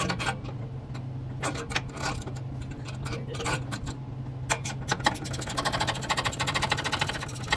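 A few scattered metallic clanks of tools, then, about five seconds in, a ratchet starts clicking rapidly and evenly as a bolt is run in or out under the car. A steady low hum runs underneath.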